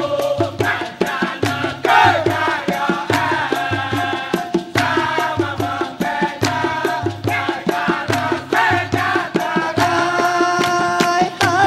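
Dikir barat singing: a male lead voice and a male chorus sing over a steady beat of hand clapping, low drum strokes and rattling percussion.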